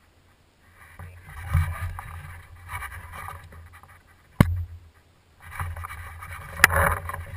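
Handling and rustling noise on a bow-mounted camera as the player moves with a paintball Airrow bow, with a low rumble. Two sharp clicks about two seconds apart cut through it.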